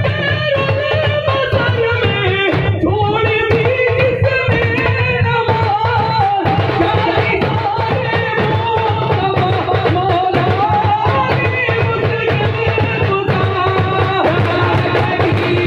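Singing over frame drums beaten in a steady, fast rhythm.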